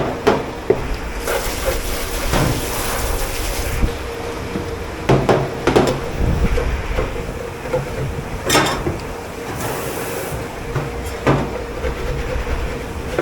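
Dish pit washing-up: crockery and metal pans clattering and knocking, with two hissing rushes of spray from the pre-rinse hose, the first lasting a couple of seconds and a shorter one near the end, over a steady machine hum.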